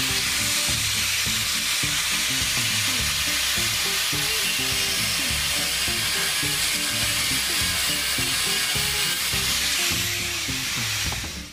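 Handheld power cutter, most likely an angle grinder with a cutting disc, cutting through the cast aluminium sprue, a loud, steady hiss that stops near the end.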